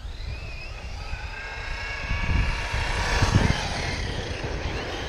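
Arrma Kraton 6S V4 RC monster truck's brushless motor whining as it is driven, the whine sliding up and down in pitch with the throttle and loudest a little over three seconds in, over a low rumble.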